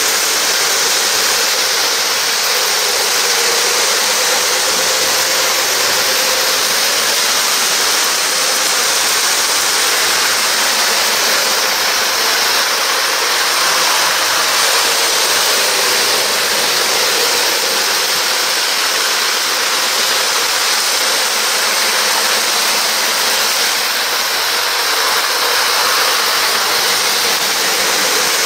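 O-gauge model train running on three-rail track: a steady, even rushing whir with no rhythm or change in level.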